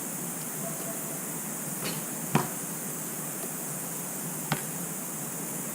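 GoPro Hero5 Session audio with a steady high-pitched hiss and three sharp clicks, the loudest a little past two seconds in: the recording noise shown as the camera's sound problem.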